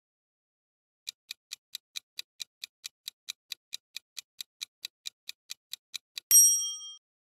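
Quiz countdown-timer sound effect: rapid clock ticking, about four and a half ticks a second for about five seconds, then a single bright chime that rings and fades as time runs out.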